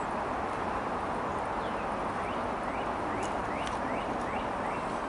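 A bird calling a run of about eight short, quick chirps over a couple of seconds, over a steady outdoor hiss.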